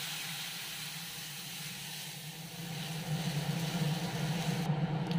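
Boiled sour greens and their cooking liquid poured into hot oil in a metal wok, hissing and sizzling with a burst of steam. The hiss fades over a few seconds and cuts off near the end, over a steady low hum.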